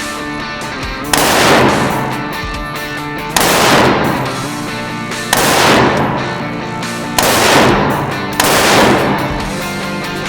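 Music with steady held notes and a loud crashing hit roughly every two seconds, each hit ringing out and fading slowly.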